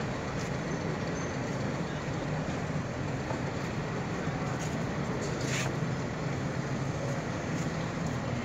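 GRU20 and PHA20 diesel-electric locomotives running at low speed while shunting, giving a steady low engine drone. A brief high sound comes about five and a half seconds in.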